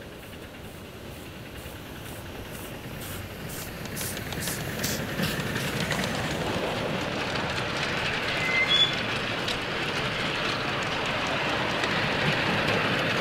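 Miniature steam locomotive and its train of goods wagons rolling past on the ride-on track, the wheel rumble growing louder as the train nears. A run of regular beats comes a few seconds in, and a brief high squeal comes about two-thirds of the way through.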